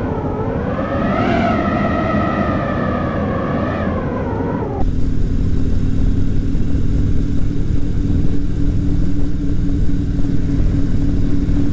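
An opening sound of several tones that swell and fall together, which cuts off suddenly about five seconds in. It gives way to a Harley-Davidson Fat Bob's V-twin engine running steadily while cruising, with wind noise on the microphone.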